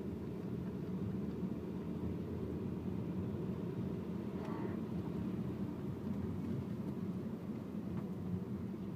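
2006 Kia Optima V6 engine running with a steady low drone, in a car whose AC compressor the owner suspects is going bad.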